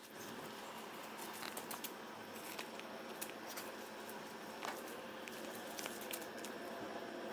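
Paper plates and gummy bears burning on a small grill: a steady hiss with scattered crackles and small pops.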